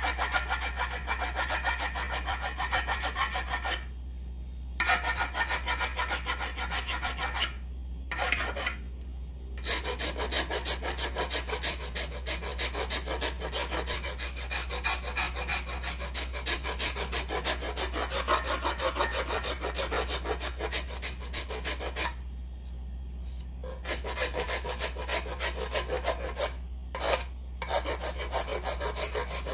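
A hand rasp filing the end of a new wooden axe handle in quick back-and-forth strokes, shaping and thinning it, with a few short pauses between runs of strokes.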